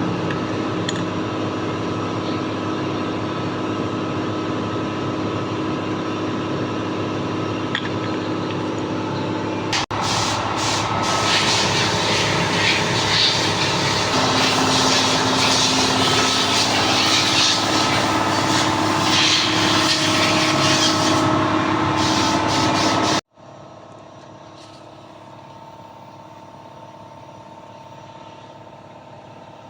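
Machinery running steadily with a low hum and several steady tones. About ten seconds in it gets louder and adds a hiss, then cuts off suddenly near the end, leaving a much quieter steady hum.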